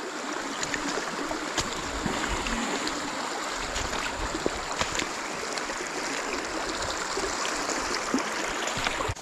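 Creek water running steadily, an even rushing noise with a few faint clicks scattered through it.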